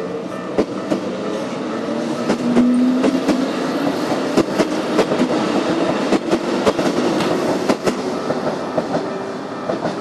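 Keikyu Daishi Line electric train passing a level crossing, its wheels clacking over the rail joints in a long run of sharp clicks that is thickest in the middle and thins out near the end.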